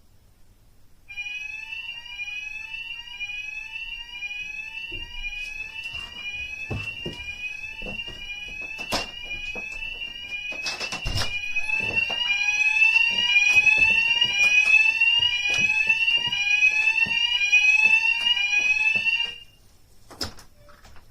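Smoke alarm sounding: a high rising sweep tone repeated rapidly over and over, growing louder about halfway through and cutting off suddenly near the end. Scattered knocks and thumps sound under it.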